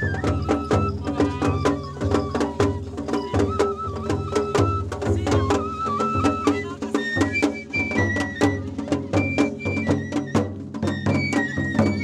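Japanese festival hayashi: a bamboo transverse flute plays a stepping melody over taiko drums and quick, sharp percussion strikes several times a second. The flute line sits higher in the second half.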